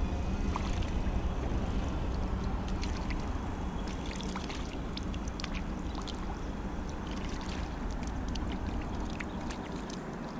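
Shallow lake water sloshing and dripping as a small coin is rinsed and rubbed clean by hand, with scattered small splashes and clicks over a steady low rumble.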